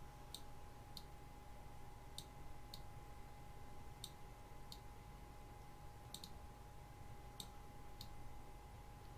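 Computer mouse clicking about nine times at irregular intervals, many clicks a quick double press-and-release, as sliders are grabbed and let go; a faint steady whine and low hum sit underneath.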